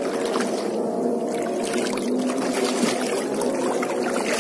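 Shallow seawater sloshing and splashing steadily as someone wades through it.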